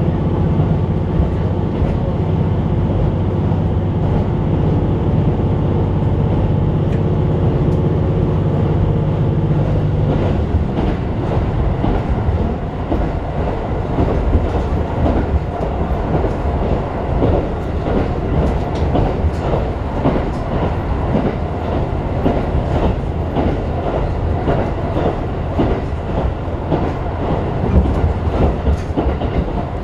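Diesel railcar heard from inside the passenger cabin. The engine drones steadily under power, then drops away about ten seconds in. After that, rumbling wheel-and-rail noise with scattered clacks continues.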